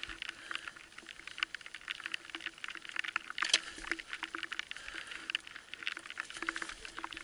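Enduro motorcycle rolling slowly down a rocky, grassy slope: a dense, irregular patter of small clicks and crackles from the tyres over stones and grass, with a faint steady hum underneath.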